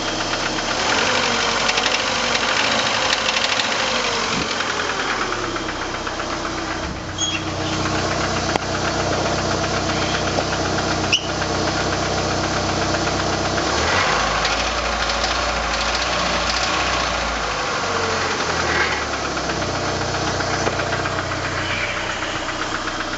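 Car engine running and revved up and back down a couple of times, with a knocking noise that the owner suspects is rod knock.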